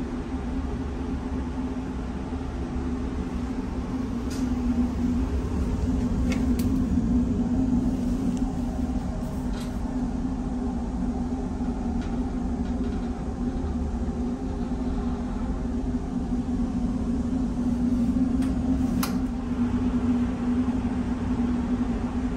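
Steady low drone of a ferry's engines and ventilation heard inside the ship, with a constant hum around one low pitch and a few faint clicks.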